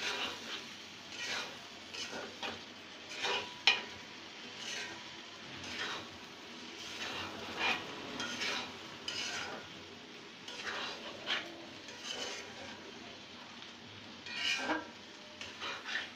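Spatula stirring thick potato curry in an aluminium pot, scraping and knocking against the pot in irregular strokes over a faint sizzle. One sharp clink comes about three and a half seconds in.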